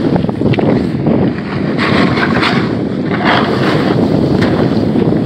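Wind rushing over a phone's microphone during a fast snowboard run, mixed with the loud hiss and scrape of the board sliding through snow, with harsher scraping bursts around the middle.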